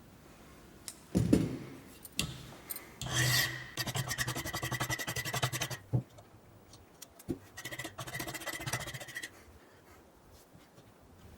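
Rasping of a tool on material while the rod is being made, in two bursts of fast, even strokes, with a knock about a second in.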